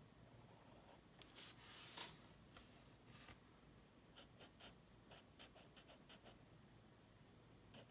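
Faint scratching of a drawing tool on paper: a longer stroke a second or two in, then a run of quick short strokes through the middle.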